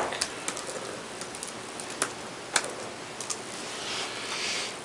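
Sparse, irregular clicks of typing on a laptop keyboard and clicking a computer mouse, with a soft hiss near the end.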